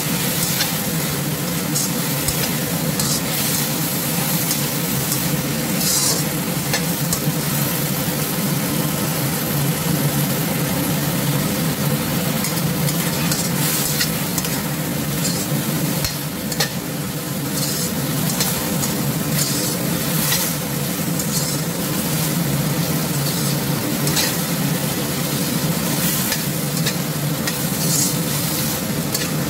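Chicken, pork and okra sizzling in a wok as a spatula stir-fries them, with steady frying hiss and scattered clicks and scrapes of the spatula against the pan.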